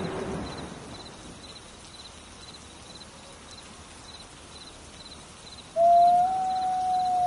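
Wolf howling. A howl ends just at the start, and a new long, steady howl on one pitch begins suddenly about six seconds in. Between them, faint chirps repeat about twice a second.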